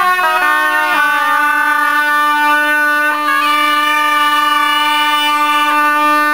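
Gajde (Balkan bagpipe) playing: a steady drone under the chanter, which holds one long melody note from about a second in, with a brief ornament around the middle.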